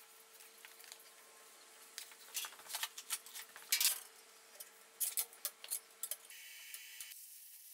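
Quiet, scratchy strokes of a felt-tip marker tracing around a cardboard template on steel sheet, with the cardboard shifting and tapping on the steel bench; the strongest scrape comes about halfway through. Just after six seconds these stop and a steady faint hiss takes over.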